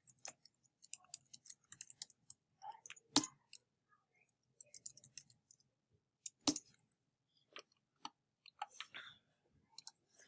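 Typing on a computer keyboard: quick runs of light keystrokes, with two louder single clicks about three and six and a half seconds in.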